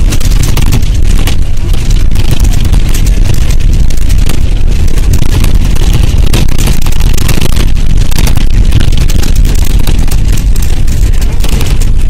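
Cabin noise inside a moving bus: engine, road and wind noise as a loud, steady rumble.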